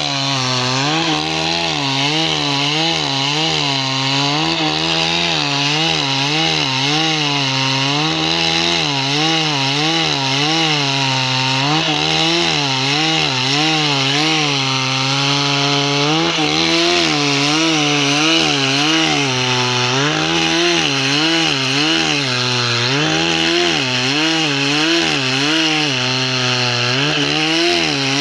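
Chainsaw running under load as it splits timber lengthwise. Its engine pitch rises and falls about once a second as the chain bites.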